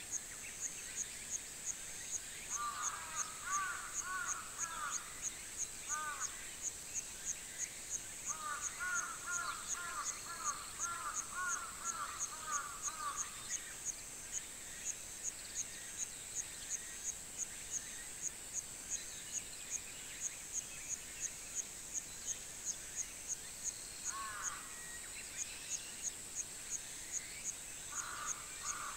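An insect chirps steadily in a high pulse about twice a second, while crows caw in runs a few seconds in, again for several seconds around the middle, and near the end.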